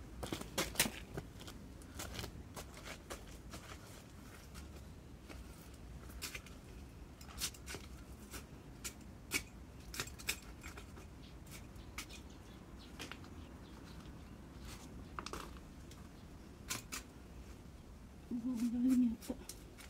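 Garden shears snipping plant stems in irregular, sharp clicks while a vegetable bed is weeded and trimmed. A short low hum from a person's voice near the end.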